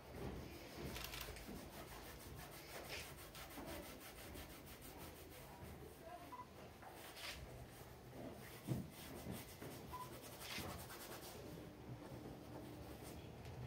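Paint being scrubbed onto a canvas in quick, repeated scratchy rubbing strokes, quiet throughout, with one louder knock about nine seconds in.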